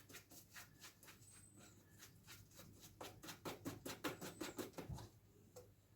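Fast, faint clicking, about five or six clicks a second, as a part is being undone by hand or with a tool. It thickens in the middle and stops just before the end.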